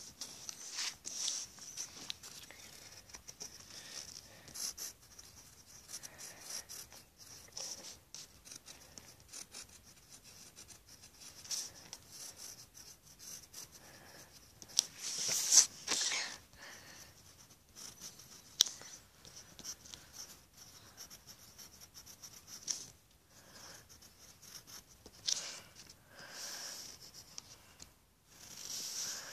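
A drawing tool scratching across paper in short, irregular strokes, with a few louder rubs and clicks.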